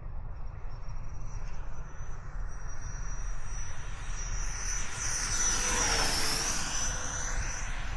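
90mm electric ducted fan of a 3D-printed RC sport jet whining in flight. It swells to its loudest about six seconds in as the jet passes low and close, dipping briefly in pitch as it goes by.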